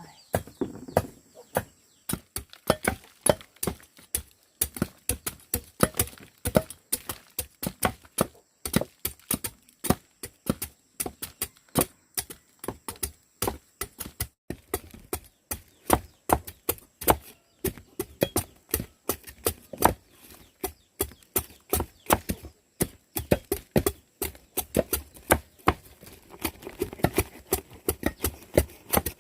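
Rapid, irregular chopping: a blade striking hard against a cutting surface several times a second without letup.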